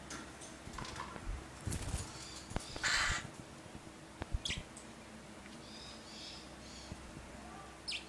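A pet parrot gives one loud, harsh call lasting about half a second, about three seconds in. Around it are a few sharp knocks and short high chirps.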